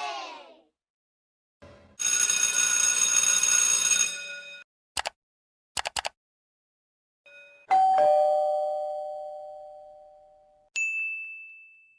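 A series of separate meme sound effects with silent gaps: a ringing tone held for about two seconds, a few quick clicks, then a two-tone doorbell-like chime that dies away over about three seconds, and a short high beep near the end.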